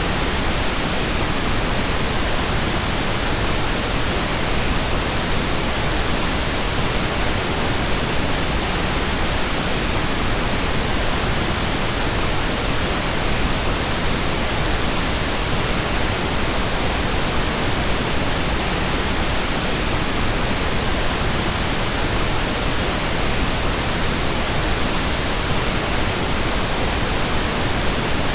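Steady, unchanging pink noise: an even hiss across the whole range, fuller in the low end than white noise.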